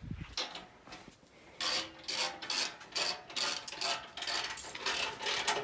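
Hand socket ratchet clicking in quick repeated strokes, about two to three a second, as it tightens the nuts on a Jeep bumper's mounting bolts; the strokes start about a second and a half in.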